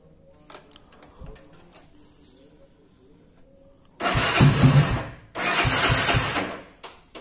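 A motorcycle engine cranked on its electric starter in two tries, each about a second long, with a short break between; it does not stay running. The owner puts this starting trouble down to the bike's electrics.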